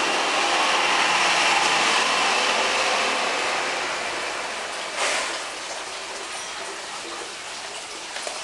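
Wind gusting through palm fronds and garden foliage, a rushing hiss that swells over the first couple of seconds and dies down after about five seconds. A brief knock comes about five seconds in.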